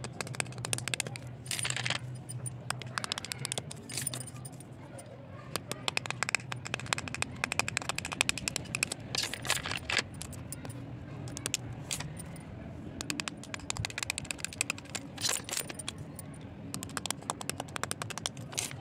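Slate pencil sticks being sliced and scraped with a knife blade: dense, irregular crisp crunching and clicking, with several louder bursts of crackling. A low steady hum runs under the first few seconds.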